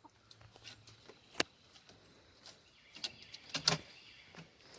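Chickens making a few soft clucks amid faint scattered clicks and rustles, with one sharper click about a second and a half in.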